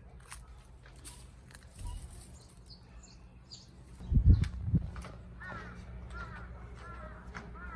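A couple of low thumps about four seconds in. From about five seconds in, a bird calls repeatedly in short arched calls over a steady low rumble.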